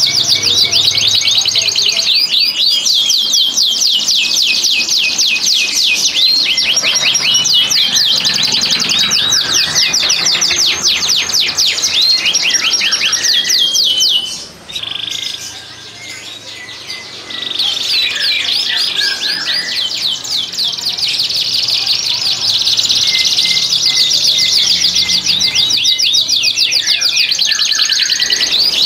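Domestic canaries singing long, fast rolling trills of repeated high notes, the song of cock birds in breeding condition. The song thins out and drops in level for a few seconds about halfway through, then picks up again.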